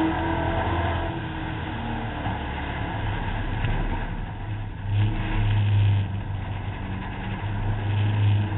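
Competition car's engine running hard on a dirt track, heard from the bonnet, revving and easing off; it swells louder about five seconds in and again near the end.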